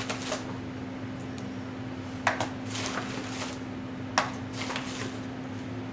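A package being handled on a table: rustling of paper and plastic packaging, with two sharp clicks, one about two seconds in and one about four seconds in.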